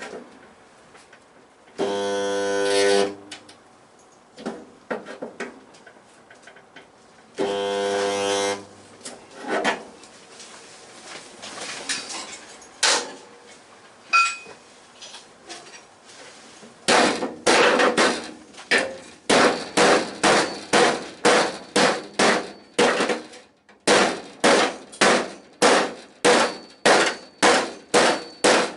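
Two short weld spots, each about a second of steady electric buzz, tacking sheet steel in place. From about halfway through, a hammer strikes sheet-steel panel work in a steady run, about two blows a second.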